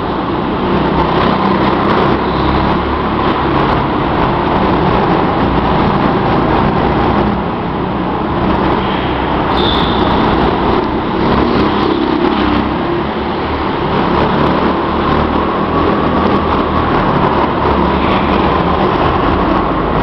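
Go-kart engines running as the karts lap the track, a loud steady drone whose pitch slowly rises and falls as they pass. A brief high squeal about nine and a half seconds in.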